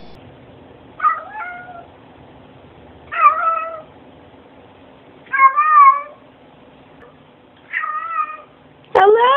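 Domestic cats meowing: five separate meows about two seconds apart, the last one rising in pitch.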